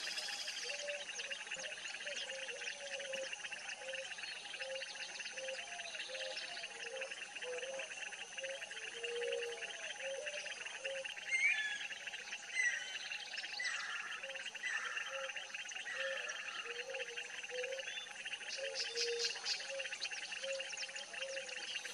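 Wetland ambience of birds and insects: a steady insect hum, a low call repeated about twice a second, and a few bird chirps, the loudest about halfway through. A fast high ticking comes in near the end.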